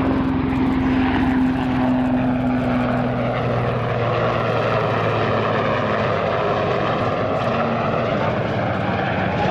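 Eurocopter AS532UL Cougar (Super Puma) military helicopter in flight: the steady sound of its twin turboshaft engines and rotors. A low hum is joined by a higher one that fades about three seconds in, and the tones shift slowly as the helicopter moves.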